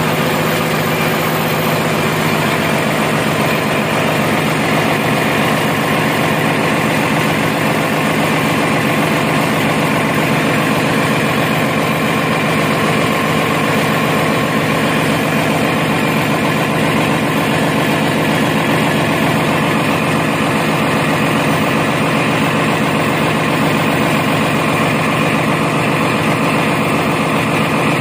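Marine diesel generator engine running at a steady speed: a loud, even drone that does not change.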